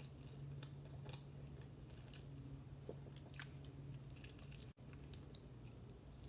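Close-miked chewing and biting of food, with small wet clicks and crunches, over a steady low drone from a neighbour's lawn mower. The sound drops out for an instant about three-quarters of the way through.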